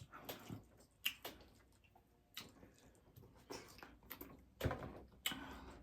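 A person chewing crunchy taco shells: irregular short crunches with gaps between them.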